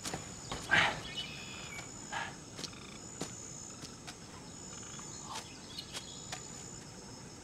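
Jungle ambience: a high, thin insect trill that comes and goes every second or so, with short bird chirps scattered through and a few faint clicks.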